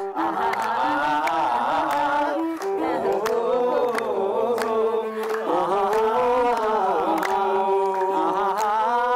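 A group singing an Amharic song, held wavering notes over steady rhythmic handclaps.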